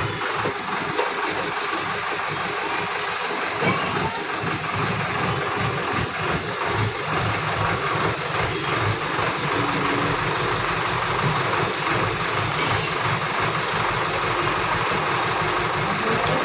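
Tractor diesel engine running steadily while it powers a hydraulic crane boom, with a dense low pulsing throughout. Two brief sharp clicks stand out, one a few seconds in and one late on.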